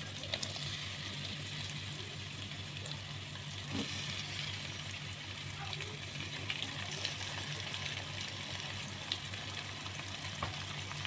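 Dried anchovies frying in hot oil together with sliced garlic and shallots in an aluminium wok: a steady sizzle with fine crackling.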